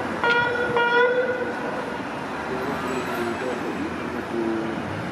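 Police patrol car's horn, two short blasts in quick succession at one steady pitch within the first second and a half, with city traffic running on underneath afterwards.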